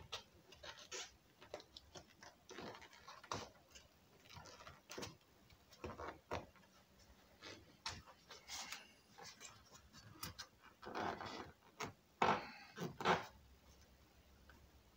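Vinyl trim being pressed and smoothed by hand onto a metal B-pillar trim strip: irregular rubbing and scuffing with small taps and clicks from the metal strip and its tabs, with a few louder scuffs late on.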